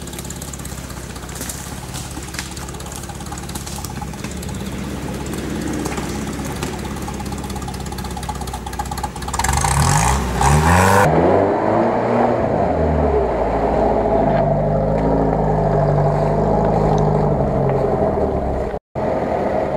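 Off-road 4x4 engine running, revving up and down about ten seconds in as it pulls through the forest mud, then running steadily under load. The sound cuts out for an instant near the end.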